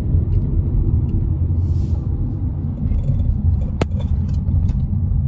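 Steady low rumble of a moving car heard from inside the cabin, with one sharp click about four seconds in.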